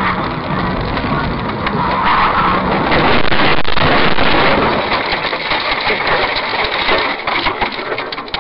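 Motor vehicle running, with steady road noise, and a run of sharp clattering knocks in the second half.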